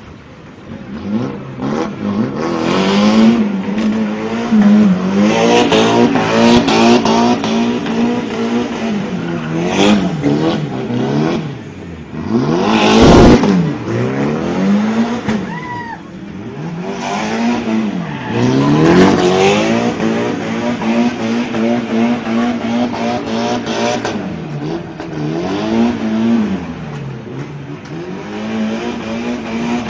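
A drift car's engine held at high revs through donuts, the revs dropping and climbing again many times, with the tyres squealing and skidding. There is one louder sweeping surge about 13 seconds in.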